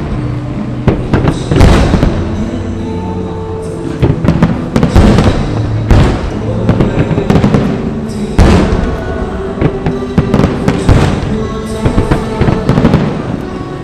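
A fireworks display: shells bursting one after another, a loud bang every second or two with crackling in between, while music plays alongside.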